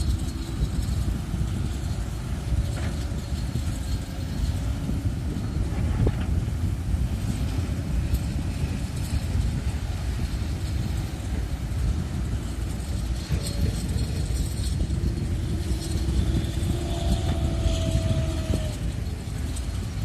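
Excavator on a construction site, its engine running with a steady low rumble. A faint thin whine sounds briefly near the end.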